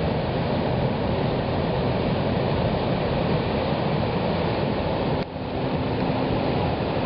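Ocean surf and wind blowing across the microphone make a steady rushing noise, with a brief drop in level about five seconds in.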